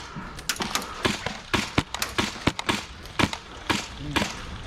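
Airsoft gunfire: a string of sharp single clicks and snaps at uneven spacing, two to four a second.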